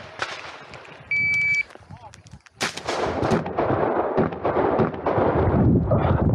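Electronic shot timer's start beep, a steady tone about half a second long, about a second in. About a second later a Benelli M2 semi-automatic shotgun fires, its loud shots repeating amid continuous loud noise to the end.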